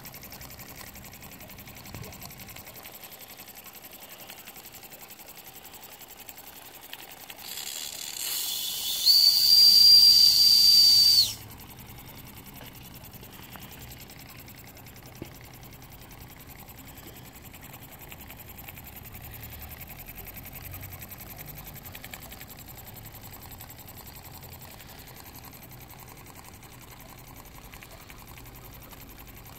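Schoenner 160/1 vertical live-steam model engine running, ticking quietly and steadily. About eight seconds in, a hiss of steam builds, then the boiler's steam whistle blows one high steady note for about two seconds and cuts off suddenly.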